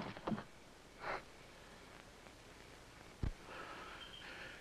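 A man breathing hard, out of breath from a fight: two short heavy breaths in the first second or so, then a single low thud about three seconds in.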